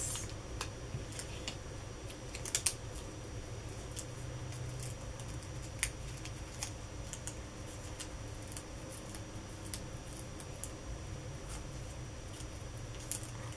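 Small irregular clicks and crackles of paper and card being handled and picked at by fingers, over a steady low hum.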